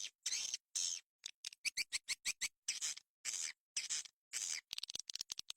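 Swiftlet calling recording, the lure sound played to draw edible-nest swiftlets to a bird house: high buzzy chirps and twitters in short bursts separated by abrupt silences, with rapid runs of clicks in the middle and again near the end.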